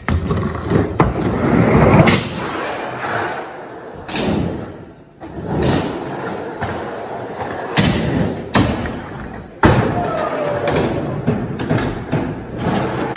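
Skateboard wheels rolling, with several sharp clacks and thuds as the board hits the ground.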